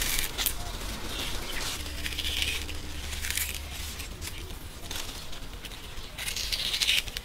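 Metal melon-baller scoop digging into a crisp peach's flesh: a few separate crunching, scraping strokes, the loudest near the end.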